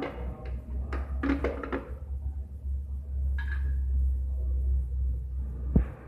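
Espresso grinder's motor humming low and steady while the doser lever clacks several times in the first two seconds; a sharp knock comes just as the hum cuts off near the end.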